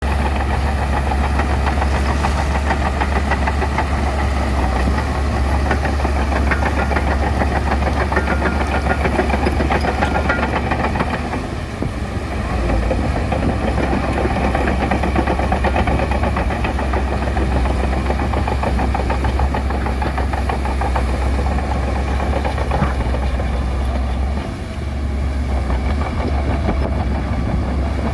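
A bulldozer's diesel engine running steadily with a deep rumble, dipping briefly twice as it works.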